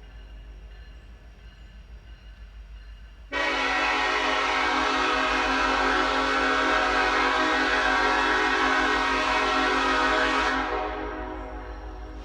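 Nathan K5LA five-chime locomotive air horn sounding one long, steady blast of about seven seconds. It starts abruptly about three seconds in and then cuts off, leaving a fading echo.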